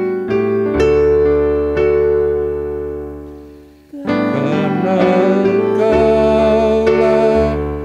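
A church keyboard plays the introduction to a sung doxology, a chord held and fading away. About four seconds in the hymn begins, with singing over the keyboard accompaniment.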